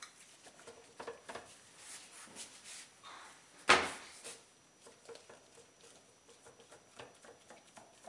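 Handling noise as a silicone mat is pressed and settled into the bottom of a plastic soap loaf mold: soft rubbing and small taps, with one sharp knock about three and a half seconds in.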